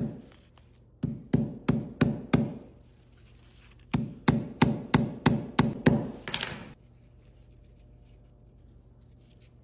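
Hammer tapping a knotted strap laid on concrete to loosen the knot's fibres: two runs of quick, even taps, about three a second, followed by a brief scuffing rustle.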